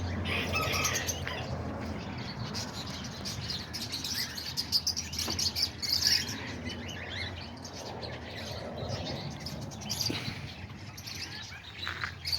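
A flock of small cage parrots, parakeets and lovebirds, chirping and chattering continuously, with many short calls overlapping.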